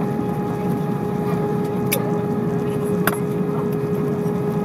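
Airbus A320 cabin noise on the landing rollout, heard inside the cabin: a steady rumble of the engines and rushing air with a constant hum tone, as the airliner decelerates on the runway with its ground spoilers up. Two short clicks come about two and three seconds in.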